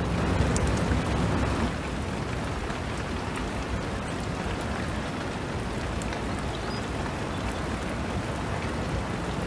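Steady rain falling, an even hiss with a few faint drip ticks. It is louder for the first couple of seconds and drops a step less than two seconds in.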